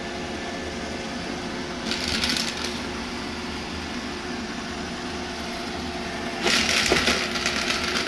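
Roomba robot vacuum running with a steady motor hum. Twice there is a spell of crackling and crunching, briefly about two seconds in and for longer near the end, as it takes in dried dog poop, hair and wood debris.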